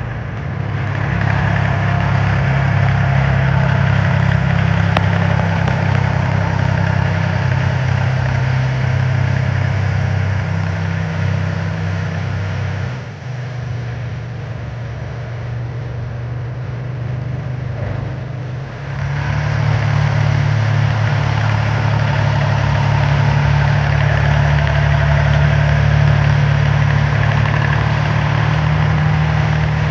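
An engine running steadily, easing off about thirteen seconds in and picking back up about six seconds later.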